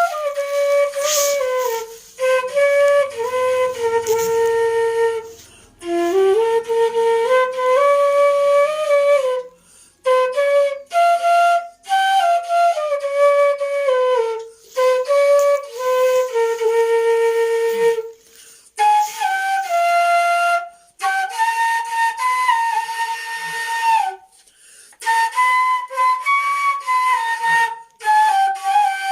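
Background flute music: a solo melody played in short phrases with brief pauses between them.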